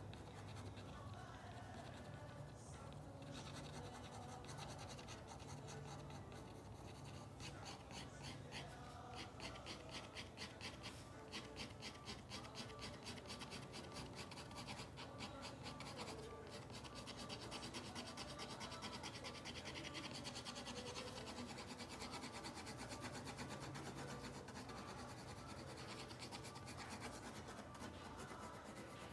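Pen nib scratching on paper in rapid hatching strokes, building up lines to darken areas of a drawing. The strokes come in quick runs throughout.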